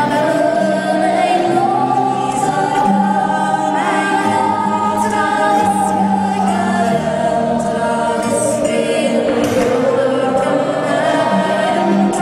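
Handsaw played as a musical saw with a violin bow: a smooth, wavering, voice-like melody that slides up, holds, sinks slowly to a low note near the end and climbs again. Sustained backing chords sound beneath it.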